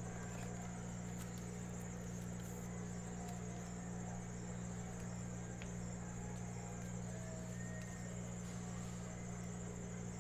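Steady low electrical hum with a thin, high-pitched whine over it, unchanging throughout, with a few faint ticks and rustles of trading cards being handled.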